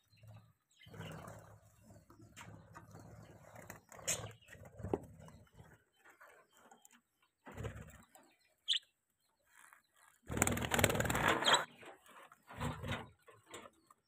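Budgerigars giving scattered short, sharp chirps, mixed with rustling and knocking from handling around the cage. About ten seconds in comes a loud burst of rustling that lasts over a second.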